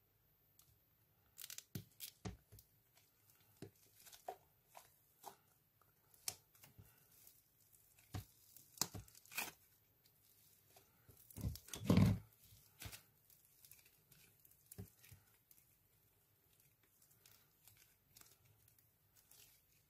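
Plastic slime cup being handled and opened: scattered clicks and crinkling of the plastic lid and container, with one louder crackling stretch about halfway through.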